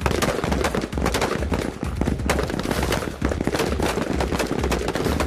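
Several 5.56 mm service rifles firing on a range at once: a dense, irregular run of sharp, overlapping shots, several a second.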